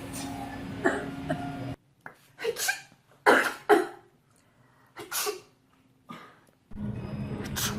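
A woman sneezing repeatedly: several short, sharp sneezes, the loudest two in quick succession near the middle. A steady background hum cuts out and back in between them.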